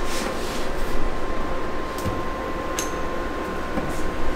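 HP large-format printer initialising, its fans giving a steady hum with a constant faint tone, and a couple of light clicks about two and three seconds in.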